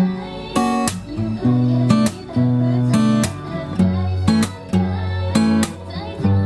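Acoustic guitar strumming chords in a steady rhythm, about two strokes a second, the chord ringing between strokes.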